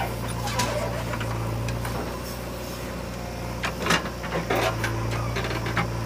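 A JCB 3DX backhoe loader's diesel engine runs steadily under load, with several short knocks and clanks from the working bucket and arm near the middle of the stretch.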